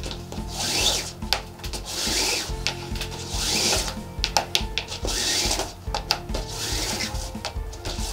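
Nylon paracord being pulled through a sling swivel loop by hand: a series of rasping, swishing pulls, one every second or two. Background music with a steady beat runs underneath.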